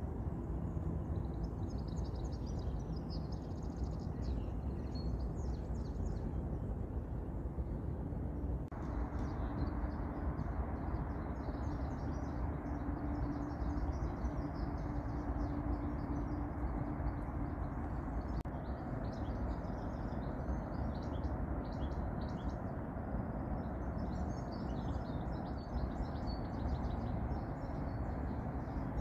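Outdoor ambience: small birds chirping and twittering over a steady low background rumble. The background changes abruptly about a third of the way in, and a faint steady hum runs for several seconds after that.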